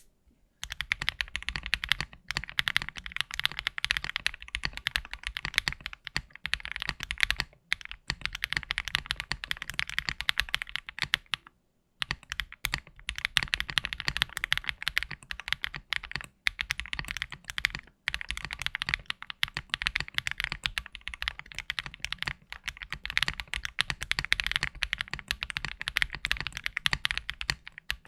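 KBDFans Tiger 80 mechanical keyboard in its stock, unmodified build, typed on quickly: long runs of dense keystrokes broken by a few short pauses.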